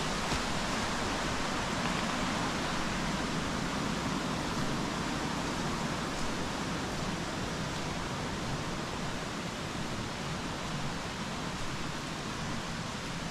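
Steady rushing of a stream flowing down a wooded valley over small waterfalls, an even noise with no distinct events.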